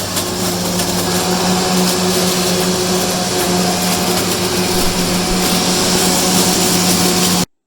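Leaf blower running steadily with a strong hum and a loud rush of air, stopping abruptly near the end.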